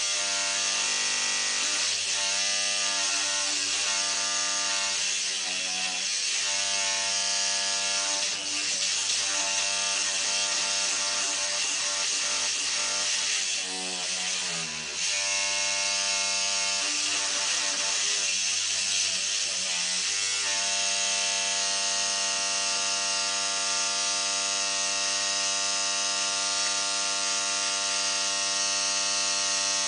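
Electric toothbrush running with a steady buzz, its tone wavering as a cat chews on the moving brush head. About halfway through it briefly bogs down with a falling pitch, then runs steady and even for the last third.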